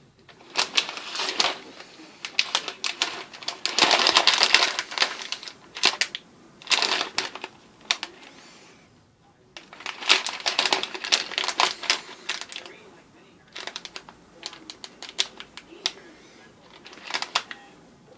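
Small plastic LEGO Technic pieces clicking and rattling as they are handled, in several bouts of quick clatter with short pauses between.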